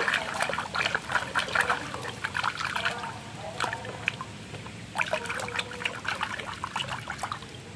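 Water sloshing and splashing in a plastic tub as a hand shakes a small toy animal through it to wash the mud off. The splashing comes in irregular spurts, easing off for a moment around the middle and again near the end.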